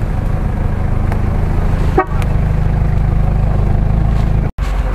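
A lifted Toyota 4Runner's engine running steadily at low revs as the truck crawls past close by, with a short horn-like toot about two seconds in. The sound drops out for an instant near the end.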